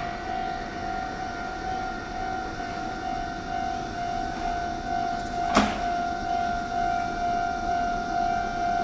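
Railway level-crossing alarm ringing steadily, a repeating electronic clang on one pitch. The noise of a passing train fades at the start, and there is a single sharp clank about five and a half seconds in.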